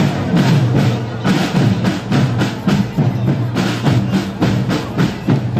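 Marching drum line of snare drums and bass drums playing a steady rhythmic cadence together.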